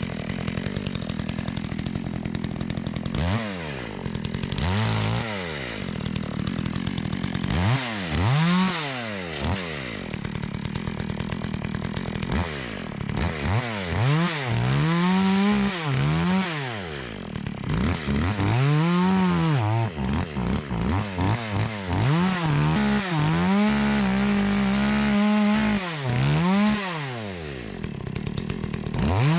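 Chainsaw engine idling, then revved up and let fall back about eight times, with one rev held at full throttle for about two seconds near the end.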